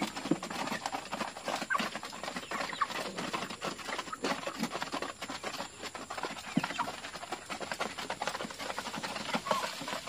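A flock of broiler chickens pecking feed from a trough feeder: a dense, rapid tapping of beaks with a few short clucks.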